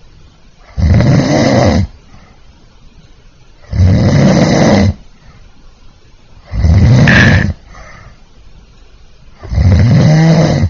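A man snoring in his sleep: four loud snores, each about a second long, coming roughly every three seconds.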